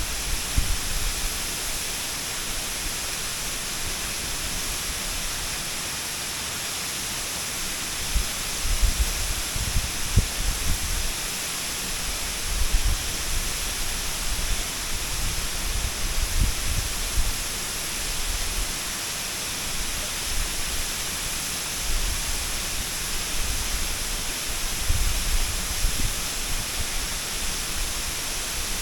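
Waterfall's water crashing in a steady, full hiss, with irregular low rumbles swelling now and then.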